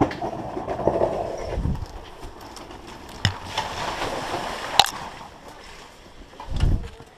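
Dirt bike going past close by, with a rush of spraying dirt and splashing water and two sharp knocks, the second one the loudest.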